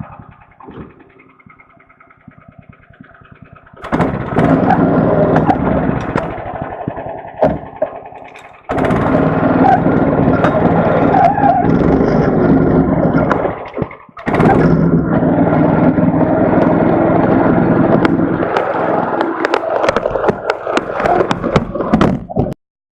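Small engine of a 'cheval de fer' tracked forestry skidder, running low, then revving up and working about four seconds in, with knocks and cracks over it. The engine note drops briefly twice, and the sound stops abruptly near the end.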